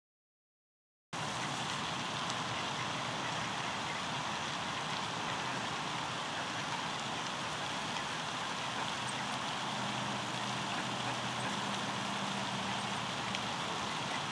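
Steady rushing outdoor background noise with no distinct events, starting about a second in. A faint low hum shows through it for a few seconds in the latter half.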